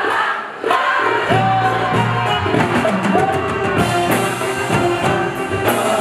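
Live Arabic concert music: a male singer with an orchestra including violins, over the sound of a large audience, with held sung notes.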